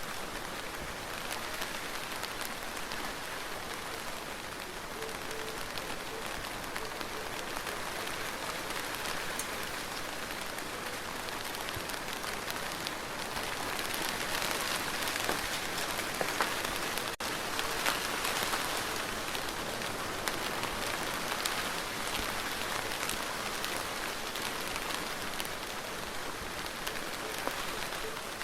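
Steady rain falling, with many individual drops ticking through the hiss. It swells a little louder about halfway through, with a split-second break in the sound.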